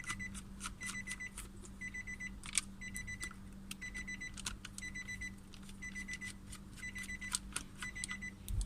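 Car's electronic warning chime beeping steadily, a short high beep about once a second, with scattered sharp clicks from the door trim being handled.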